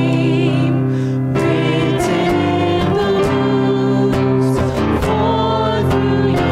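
Voices singing a worship hymn with instrumental accompaniment, in sustained, flowing phrases.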